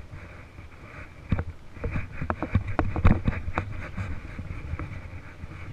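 Baitcasting reel being cranked and handled close to the microphone: a string of irregular clicks and knocks, thickest through the middle, over a steady low rumble.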